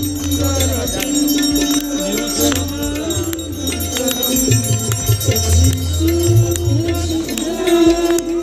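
Hindu aarti hymn sung with a held, wavering melody, accompanied by ringing bells and the crowd's hand clapping.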